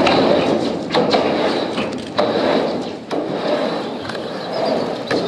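Skateboard wheels rolling over rough ground with a steady gritty rumble, broken by a sharp knock about every second or so as the board hits bumps or cracks.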